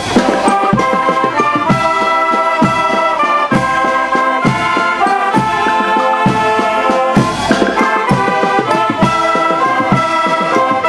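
A Schalmeienkapelle (shawm band) playing a tune in sustained chords on Martin shawms, the multi-bell reed horns, over a steady beat.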